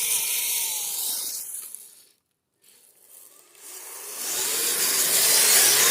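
Kyosho Blizzard RC snowcat spinning in snow: a hiss of tracks churning snow with a faint electric motor whine that rises and falls. The sound fades away about two seconds in, cuts out briefly, then builds back up and is loudest near the end.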